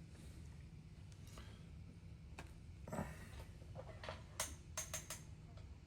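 A few faint light clicks and taps, one about halfway and a quick cluster near the end, over a low steady hum.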